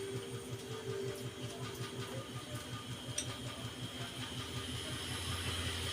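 Steady low machine hum pulsing quickly and evenly, several times a second, with a single faint click about three seconds in.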